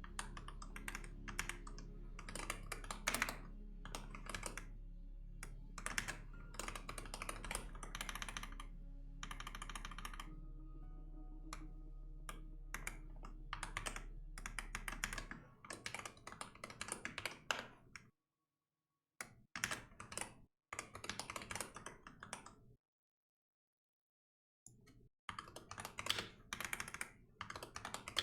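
Typing on a computer keyboard in quick runs of key clicks, broken by short pauses. A low steady hum sits under the typing and stops about halfway through.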